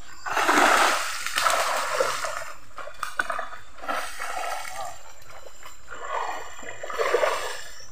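Water splashing and dripping in irregular bursts as a fishing net is pulled up out of a river beside a wooden canoe, loudest near the start and again near the end.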